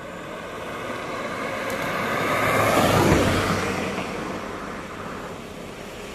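A car passing close by on the highway: engine and tyre noise swell to a peak about halfway through, then fade as it goes away.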